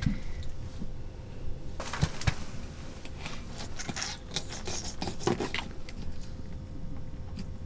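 Fillet knife cutting through a small whitefish on a hard plastic case: scattered scrapes, taps and clicks of the blade and of the fish being handled, over a faint steady hum.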